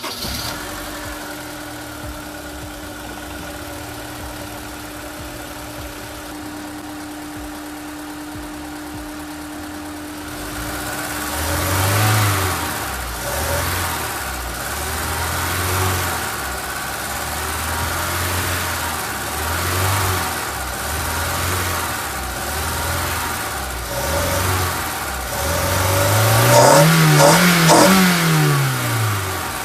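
Honda S2000's four-cylinder engine idling steadily, then revved in a series of short throttle blips from about ten seconds in, with one longer, higher rev that rises and falls near the end.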